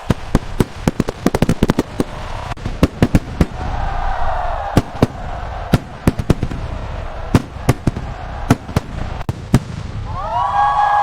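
New Year's Eve aerial fireworks bursting: a rapid, irregular string of sharp bangs, some in quick clusters, with a wavering tone running underneath that rises near the end.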